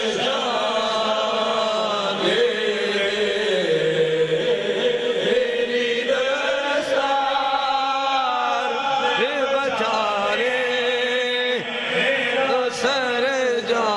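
A man's voice sings a devotional kalam (naat) into a microphone in long, held notes that bend and waver, with no pauses between phrases.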